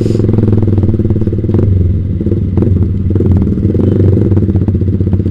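Yamaha Vixion single-cylinder engine with a Proliner TR1 short aftermarket exhaust, running at a steady engine speed on the move, with scattered light clicks over the engine note.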